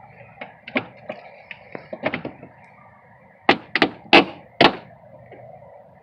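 A taillight housing being knocked and pressed into place on a car's rear body: a run of light clicks and knocks, then four sharp, loud knocks in quick succession about three and a half seconds in.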